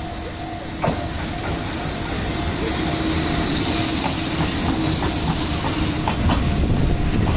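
EF65 electric locomotive hauling loaded ballast hopper wagons rolls close past, with a steady rumble and wheels clicking over rail joints. It grows louder as the locomotive passes and the hoppers follow. There is a single sharp knock about a second in.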